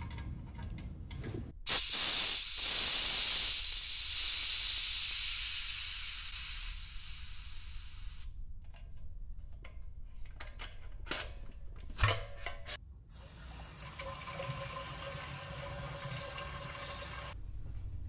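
Pressure relief valve on a 4-gallon stainless keg-cleaning can venting its CO2 pressure: a loud hiss that starts about two seconds in and fades away over about six seconds, as the can is depressurized before its lid is opened. A few sharp clicks follow about ten seconds in.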